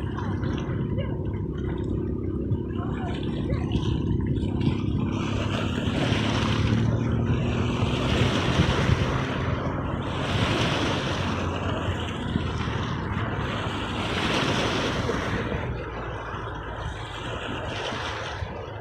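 Sea waves washing on the shore, the surf hissing up in swells about every two seconds, over a steady low rumble of wind on the microphone.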